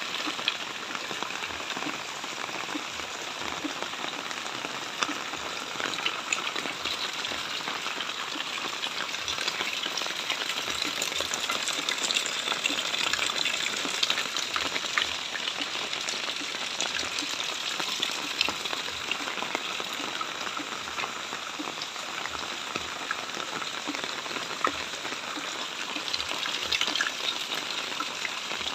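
Steady rain falling: an even hiss with many sharp little drop impacts throughout.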